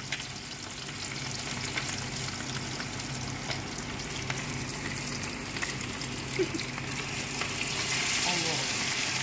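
Battered food deep-frying in hot oil in a pan: a steady sizzle with scattered small pops and crackles, growing a little louder near the end as more pieces go into the oil.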